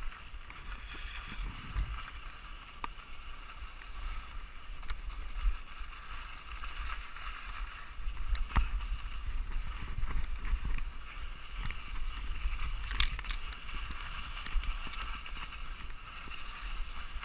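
Mountain bike riding a snowy dirt trail: a steady rush of wind on the microphone over an uneven low rumble from the tyres on the bumps. Two sharp knocks come through, about halfway and again near the three-quarter mark.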